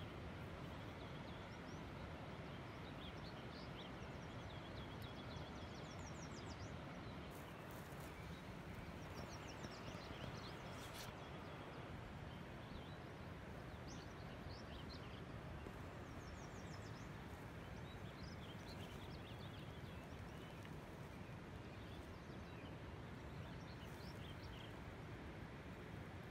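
Quiet outdoor ambience: a steady rushing background, with small birds calling in short, quick trills several times.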